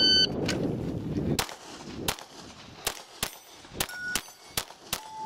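Electronic shot timer beeps at the start, then a 9mm Glock pistol fires a fast string of shots, roughly two a second, with steel targets ringing after some of the hits.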